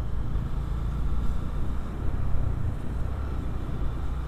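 Motorcycle being ridden at low speed: the engine running steadily under a low rumble of wind on the microphone.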